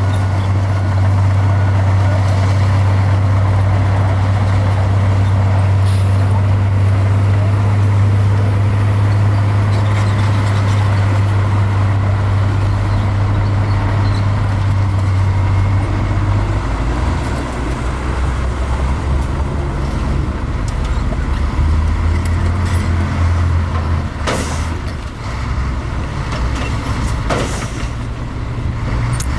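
Bulldozer's diesel engine running hard with a steady low drone, which drops to a lower, more uneven note about halfway through. A few short sharp noises cut through near the start and twice near the end.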